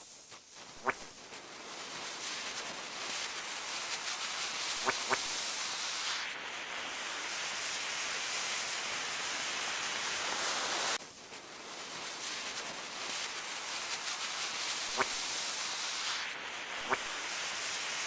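A rushing hiss of noise that swells, cuts off abruptly about eleven seconds in and builds up again, with a few short, thin chirps scattered through it.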